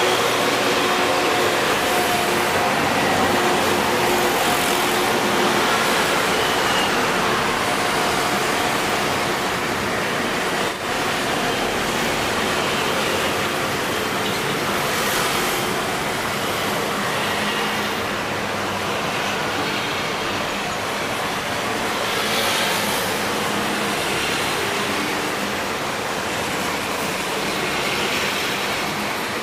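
Steady rushing background noise with a few gentle swells and a brief dip about eleven seconds in.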